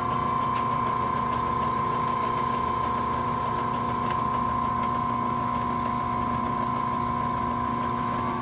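Cincinnati Series 5 mechanical press brake running at rest: its drive motor, belts and flywheel turning with a steady hum and a constant high-pitched whine.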